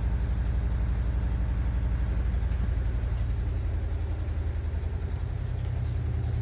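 A steady, low mechanical hum like a motor or engine running, pulsing fast and evenly without change.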